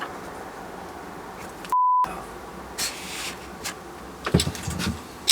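A short steady 1 kHz censor bleep, about a third of a second long, roughly two seconds in, with the rest of the audio muted beneath it. Scattered knocks and clatter follow.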